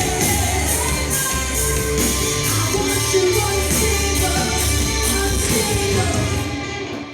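Live rock band playing the last bars of a song: drums with evenly spaced cymbal hits, guitars and bass, and vocals. The music dies away near the end.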